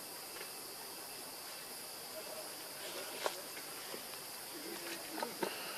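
Steady insect chorus: a constant high-pitched buzz, with a sharp click about three seconds in and two fainter clicks just after five seconds.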